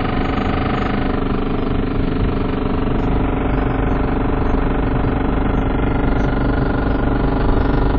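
Car engine running steadily, heard from inside the cabin: an even drone with a low rumble that grows a little stronger about three seconds in.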